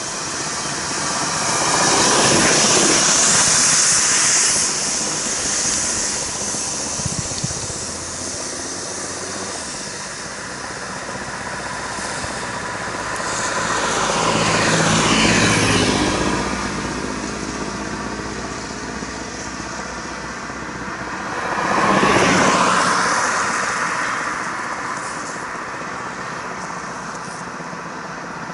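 Road traffic passing one vehicle at a time: engine and tyre noise swells and fades three times, about two seconds in, around fifteen seconds and around twenty-two seconds, with the pitch sliding as each one goes by. The road is wet, so the tyres add a hiss.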